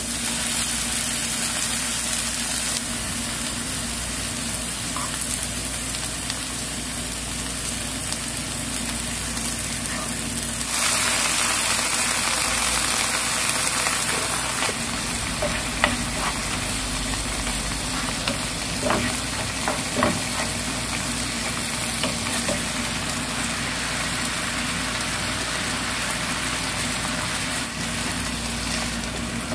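Soy sauce and mirim sizzling in a nonstick frying pan with scallions and garlic, stirred with a spatula, then strips of fish cake stirred through. The sizzle grows louder for a few seconds about a third of the way in. A few light knocks come past the middle.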